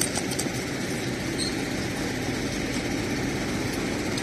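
An engine running steadily with a low rumble, with a few faint clicks over it.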